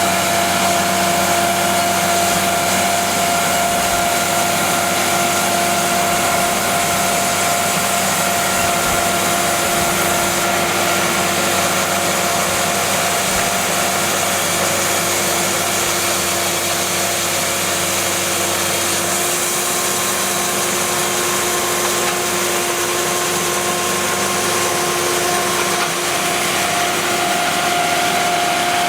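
Cook's AC3662 bandsaw mill running steadily, its Perkins diesel engine and band blade making a loud, even noise with a constant whine. The sound shifts slightly about two-thirds of the way through.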